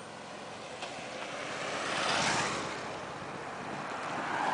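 Cars driving past on a road one after another: the noise of tyres and engines swells to a peak about two seconds in as one car passes, and a second car draws close near the end.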